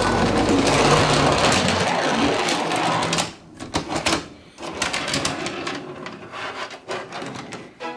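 Plastic toy parking garage and toy vehicles being handled: a dense rattling clatter for about three seconds, then a string of separate clicks and knocks.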